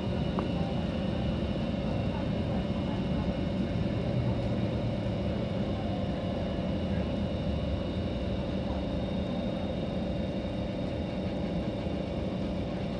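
Cabin sound of a Kawasaki-built C151 metro train slowing into a station: a continuous low rumble of wheels and running gear with the steady whine of its traction motors.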